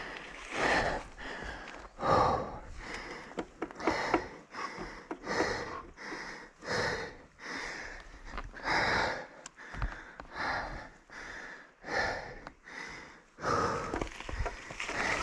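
A mountain biker's heavy breathing: quick, even breaths repeating a little over once a second.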